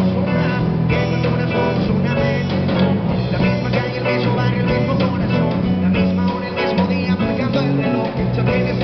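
Live rock band playing: electric bass, electric guitar and drums, with a man singing into a microphone over them.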